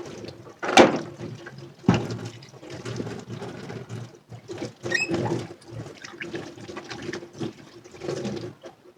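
Water running in a kitchen sink while dishes are washed, with irregular knocks and clatters of dishes against each other and the sink; the sharpest knock comes a little under a second in, another near two seconds, and light ringing clinks around five seconds.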